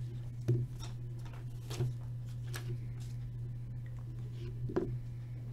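A few light clicks and taps of a marker and card packs being handled on a tabletop, spaced a second or so apart, over a steady low hum.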